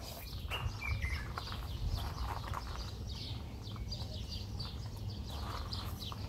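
Small birds chirping: many short, high chirps throughout, with one falling call about a second in, over a low steady rumble.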